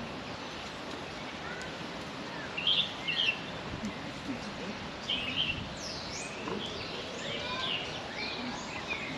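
Birds chirping: short, high chirps and quick sweeping calls come in clusters, first about two and a half seconds in and then more often over the second half, over a steady outdoor background noise.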